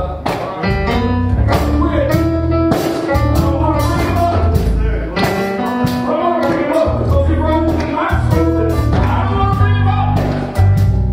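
Gospel music: a man singing into a microphone over a band with a heavy bass line and drums.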